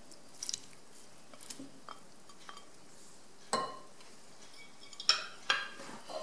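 Whisk stirring a runny egg-and-cream mixture in a glass bowl, with light clicks and a few sharper clinks against the glass, the loudest about three and a half and five seconds in.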